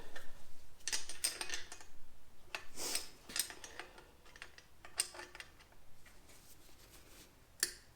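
Metal hand tools clinking and clattering: a run of short clanks in the first three seconds, then fainter scattered ticks, and one sharp clink near the end.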